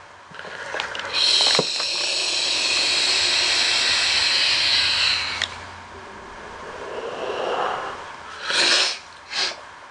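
A long draw on an electronic cigarette tank fired by a temperature-controlled nickel coil: a steady airy hiss of air pulled through the atomizer for about four seconds that stops sharply. It is followed by a slower, softer exhale and two short breaths or sniffs near the end.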